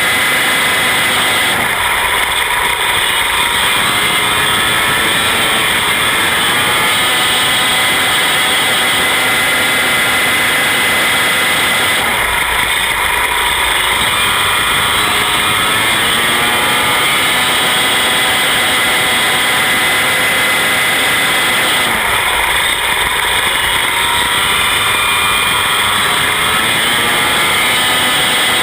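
Racing midget car engine running hard around an oval, its pitch dipping and climbing again through each turn about every ten seconds.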